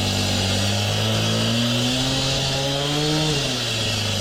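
Skid steer engine running steadily over a loud high hiss, its pitch rising and then falling back about two to three and a half seconds in, as the machine works under load.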